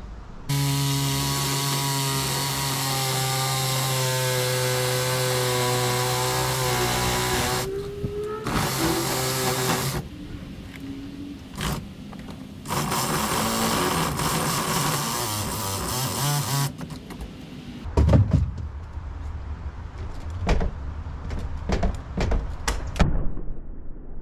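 A small electric power tool motor runs in two long stretches, its pitch sagging near the end of the first, followed by a series of sharp knocks and a heavy thud.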